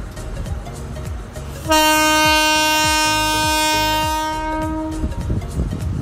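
Sri Lanka Railways Class S11 diesel multiple unit sounding its horn: one long, steady blast that starts nearly two seconds in and lasts about three and a half seconds.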